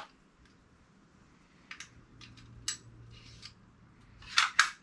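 Air brad nailer's magazine being reloaded with a strip of 25 mm brad nails: a few light clicks and rattles as the strip goes in, then two loud sharp clacks close together near the end as the magazine is shut.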